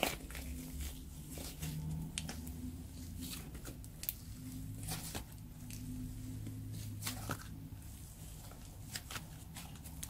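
Hands kneading and stretching a sticky black sand slime mixed with purple slime: irregular squishes and small sticky crackles as the slime is pulled and folded, over a faint low hum.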